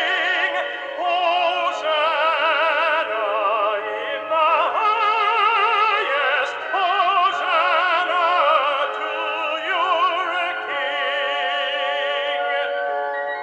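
Music from a recording of a sacred song in classical style: full accompaniment under a melody with wide, even vibrato, either a trained operatic voice holding notes or a string line.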